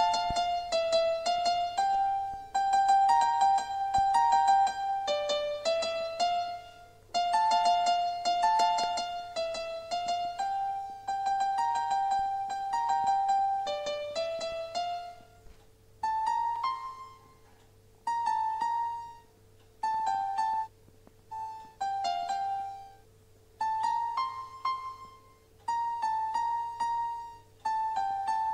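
Background music: a piano playing a simple single-note melody. A phrase repeats in the first half, then shorter notes follow with brief gaps between them.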